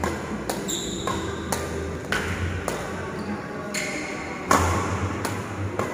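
Badminton racket striking shuttlecocks in quick succession during a multi-shuttle feeding drill, a sharp hit roughly every half-second to second, the loudest about four and a half seconds in. Short high squeaks, likely shoes on the court mat, come between the hits.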